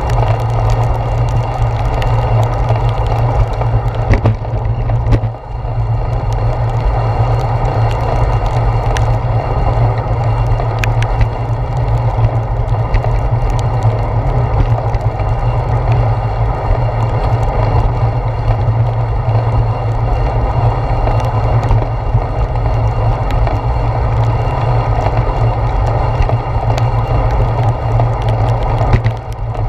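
Steady low rumble of wind and road vibration on a handlebar-mounted GoPro in its waterproof housing as a bicycle rides along a wet path in rain, with scattered clicks of raindrops striking the housing.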